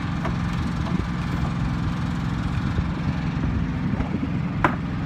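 Heavy engine running steadily with a low, even drone, with one sharp click near the end.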